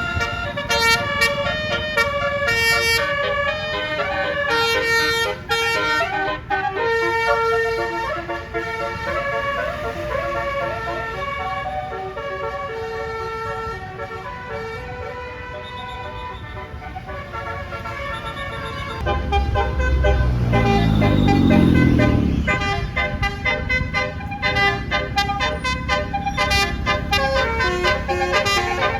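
Basuri 'telolet' multi-note air horns on Indonesian buses playing quick tunes, one note after another in short steps. About twenty seconds in, a bus engine revs up beneath the horns, the loudest moment.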